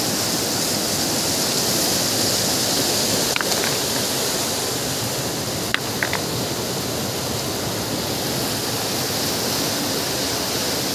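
Fast-flowing river rushing steadily over rocks, with a few brief sharp clicks about three and a half seconds in and again near the middle.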